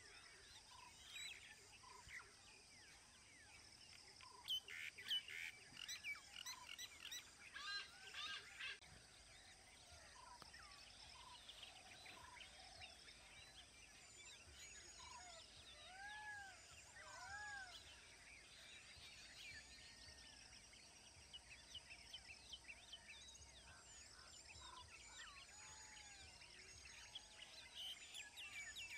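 Faint mixed birdsong: many birds chirping and whistling at once, busiest a few seconds in, with a couple of arched whistled notes near the middle.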